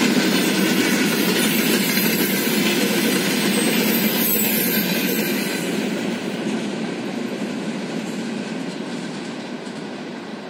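Tail end of a freight train of covered hopper wagons rolling past, wheels running on the rails. The noise holds steady for about five seconds, then fades away as the last wagon recedes.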